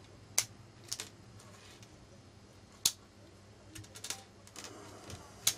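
Cold Steel Ti-Lite folding knife being opened and closed by hand: a handful of sharp metallic clicks as the blade snaps open and shut, irregularly spaced, with faint handling noise in between.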